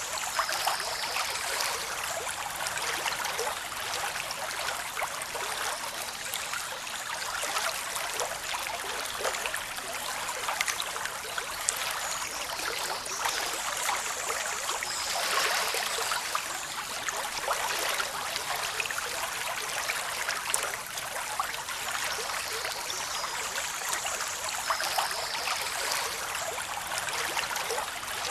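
Waterfall rushing over rocks: a steady, hissy rush of water with many small splashes and little low rumble.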